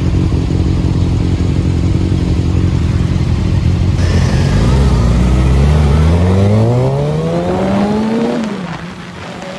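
Motorcycle engines idling at a stop. About four seconds in, a Kawasaki ZX-6R's inline-four pulls away, its pitch rising steadily through the gear, dropping at a shift near the end and climbing again.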